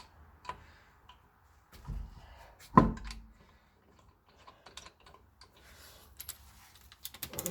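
Scattered light metal clicks and taps of hand work on a car wheel and wheel spacer, with a duller knock about two seconds in and one heavy clunk that rings briefly a little later.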